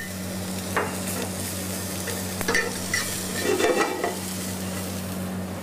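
Julienned onion and red and green bell pepper sizzling in a frying pan, with a metal utensil stirring and scraping the vegetables against the pan in scattered short strokes and clinks.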